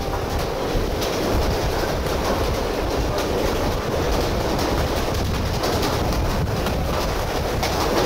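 Strong wind buffeting the camera's microphone: a steady low rumble with irregular gusty crackle.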